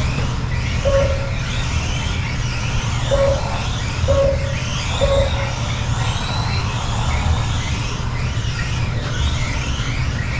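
Several Kyosho Mini-Z RC trucks racing, their small electric motors whining and rising and falling in pitch as they speed up and slow down, over a steady low hum. Four short beeps come in the first half, typical of a lap-counter tone as trucks cross the timing line.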